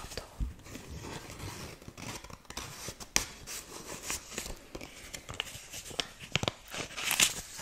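Kraft-paper envelope and greeting card handled close to the microphone: irregular paper rustling, sliding and crinkling, with light taps and scratches of fingernails on the card. A louder rustle comes near the end.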